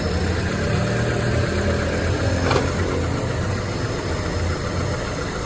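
Honda Civic LXi engine idling steadily with the replacement automatic transmission engaged in gear. A brief click about two and a half seconds in.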